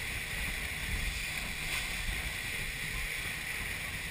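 Open passenger motorboat under way: a steady rush of engine, water and wind, with wind buffeting the microphone in low, irregular rumbles.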